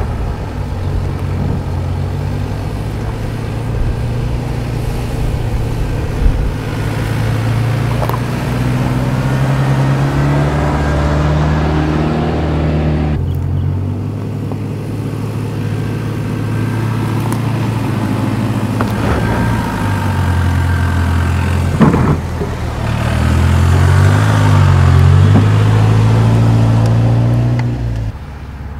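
Toyota Land Cruiser's engine pulling and revving as the SUV is driven over a rough dirt trail, its pitch rising and falling with the throttle. There is a sharp knock about three-quarters of the way through.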